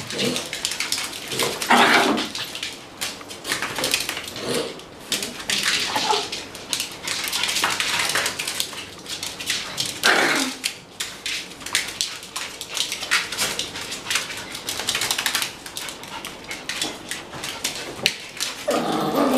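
A group of dogs playing, their claws clicking and scrabbling on a hard, slick floor, with a few short barks breaking in at intervals, one near the end.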